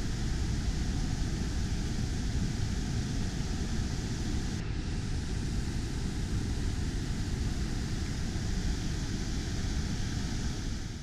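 Steady rushing roar of a large waterfall, an even wash of noise with no rhythm or pitch.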